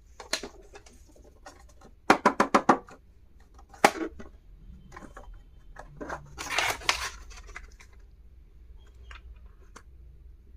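Hands handling small plastic stationery and its packaging: scattered clicks and taps, with a quick run of about six clicks around two seconds in, a sharp click near four seconds, and a rustling scrape around seven seconds.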